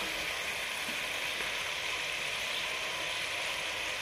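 Chicken frying in a pot with onions and ginger-garlic paste: a steady sizzle.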